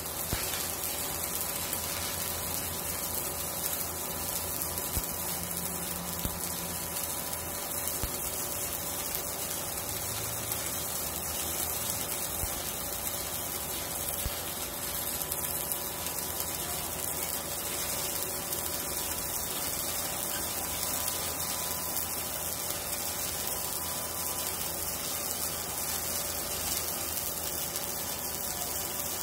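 Stick-welding arc from a 3/32-inch 6013 electrode at about 70 amps: a steady, even hiss through one continuous bead, breaking off abruptly near the end.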